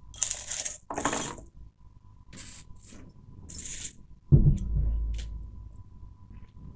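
A dark hand-built ceramic cauldron bowl being handled and unwrapped, with short scraping, rustling and clinking bursts. About four seconds in there is a single heavy thump whose low rumble dies away over about a second.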